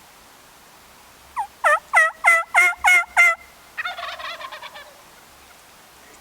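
Wild turkey calls: a series of about seven loud, evenly paced turkey yelps, followed by a tom's single gobble, a rapid rolling call lasting about a second.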